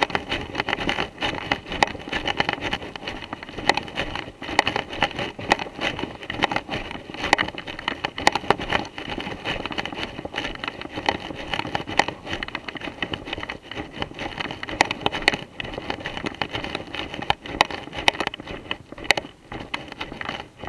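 Footsteps crunching and shuffling through a thick layer of dry fallen leaves, with a constant rustle and irregular sharp crackles.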